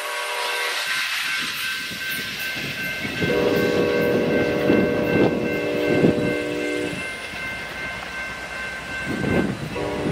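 Railroad crossing bell ringing steadily, stopping near the end as the gates finish rising. A train's air horn sounds one chord for about three and a half seconds in the middle and starts again just before the end, over a low rumble of the train with a few knocks.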